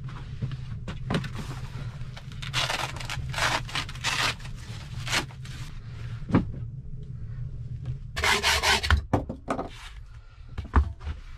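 Rustling and rubbing of clothes and boots as leather boots are pulled off and set down on a wooden plank floor, in irregular bursts. A few sharp knocks come near the end.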